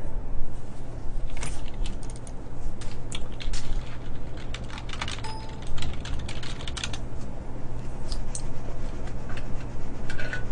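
Typing on a computer keyboard: irregular clusters of key clicks, most of them in the first two-thirds.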